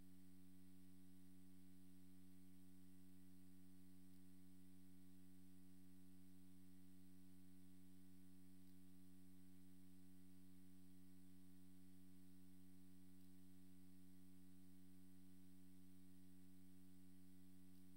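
Near silence with a faint, steady low hum and its overtones.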